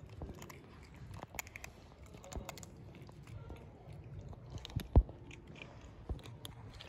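Kittens crunching and chewing dry cat kibble, a patter of small irregular clicks. A single sharp knock about five seconds in.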